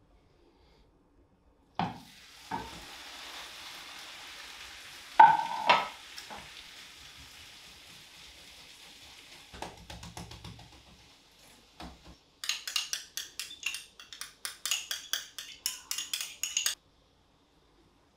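Cabbage-and-egg omelette sizzling in oil in a frying pan, with a knock and then a louder clatter of the pan. Near the end comes a fast run of sharp scraping strokes, about five a second, as a spoon works the sauce.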